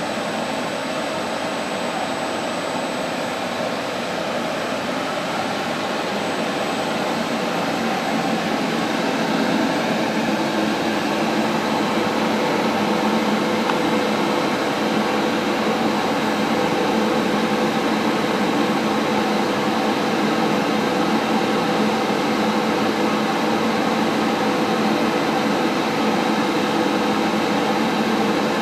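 Copier 16 CB pipe severing and beveling machine running with a steady mechanical hum and a faint high whine, growing a little louder about eight to ten seconds in.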